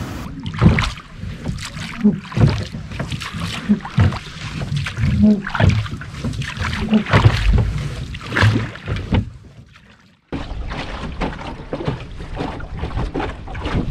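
Small boat under way on open water: irregular splashing and knocking of water against the hull, with wind buffeting the microphone. The sound drops out briefly about ten seconds in, then a steadier rush of water and wind follows.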